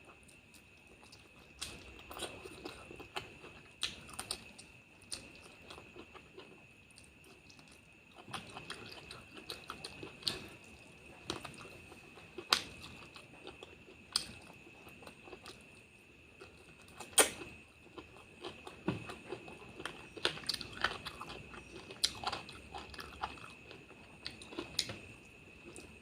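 A person chewing and smacking mouthfuls of curry and rice, close-miked, with irregular wet clicks and crunches. The sharpest click comes about 17 seconds in. A faint steady high whine runs underneath.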